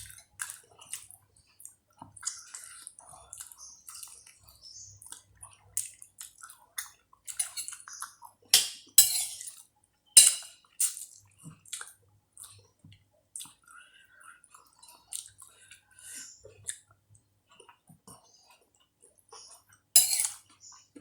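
Close-up eating sounds of a person working through vegetable soup and chicken feet: wet chewing, lip smacks and small clicks, with a few louder slurps in the middle and near the end.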